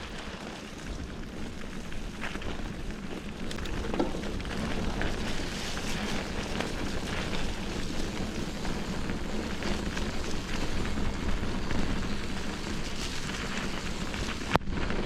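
Bicycle ride heard from a GoPro on the bike: tyres rolling over a rough forest trail with a low rumble and small rattles, and wind on the microphone. Near the end the sound breaks off briefly with a sharp click.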